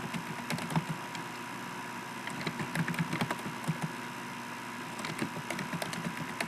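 Computer keyboard being typed on: irregular clusters of short key clicks, over a faint steady hiss and a thin steady tone.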